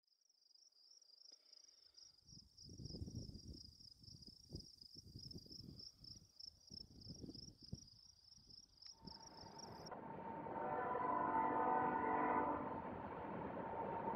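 A steady, warbling insect trill with irregular gusts of wind on the microphone, cutting off suddenly about ten seconds in. From about nine seconds in, a CN freight train hauled by several diesel locomotives is heard running, and a locomotive horn sounds for about two seconds.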